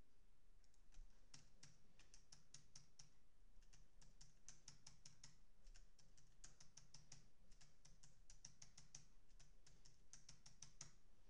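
Faint clicking of a computer keyboard and mouse: quick runs of key presses with short pauses between them.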